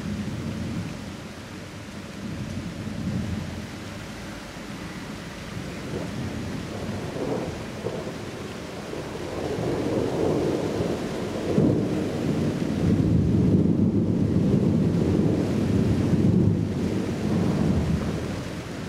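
Thunder rolling in a long low rumble that builds about halfway through, is loudest in the second half and eases near the end, over a steady hiss of rain.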